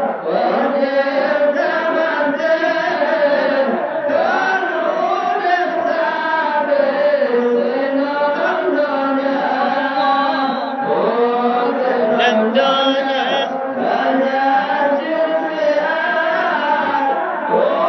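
Several voices chanting together in a continuous, wavering drone of overlapping pitches.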